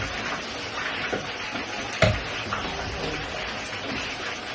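Steady hiss of food cooking on a stove, with fish frying in hot oil and a pot of waakye on the heat. There is one sharp knock about two seconds in.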